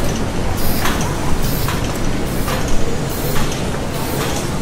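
Heavy factory machinery running with a steady low rumble and a regular beat of hissing, clanking strokes a little more than once a second.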